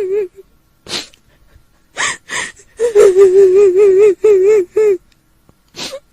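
A woman's voice doing a kuntilanak ghost's crying: a high, wavering wail held on one note, broken by sharp gasping sobs, with the longest wail in the middle.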